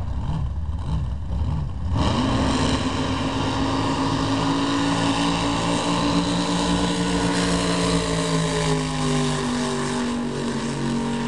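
Drag boat engines at a low rumble, then about two seconds in the drag boats launch at full throttle. A loud, steady engine note rises briefly, holds, and sinks slowly near the end as the boats run down the course.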